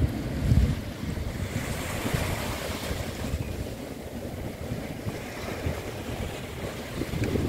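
Wind buffeting the microphone with a fluttering low rumble, over the steady wash of small waves breaking on the beach.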